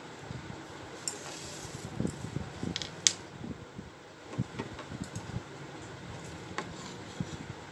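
Hands handling cloth and a cloth measuring tape on a tabletop: light rustles and soft taps scattered through, with a sharp click about three seconds in, over a steady background hiss.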